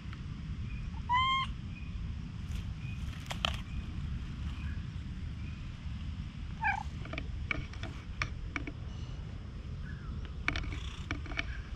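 A cat gives two short meows, one about a second in and another just past the middle. Scattered clicks and steady wind rumble on the microphone run under them.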